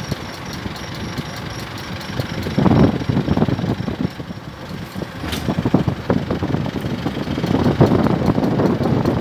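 Car running with irregular clunks and knocks from the front right wheel, a 'pok-paek pok-paek' noise whose cause the owner has not been able to find.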